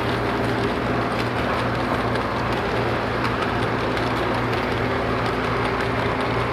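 Lionel electric model train running on toy track, its tank cars' wheels rolling with a steady rumble over a steady electric hum, with light clicking from the wheels on the rails.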